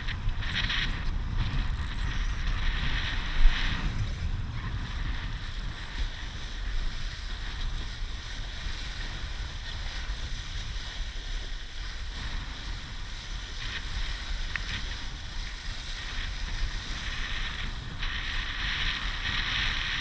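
Wind buffeting the camera microphone over water rushing and splashing along the hull of a Laser dinghy sailing hard in a 15–20 knot breeze, with a sharp thump about three and a half seconds in.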